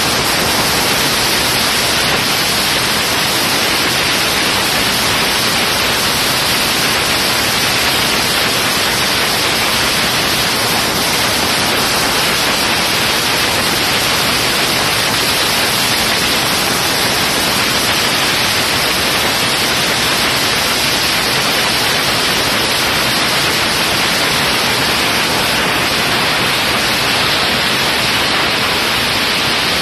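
Top Fuel dragster's supercharged nitromethane V8 running steadily through its pit warm-up, heard as a loud, unchanging dense noise without any clear pitch.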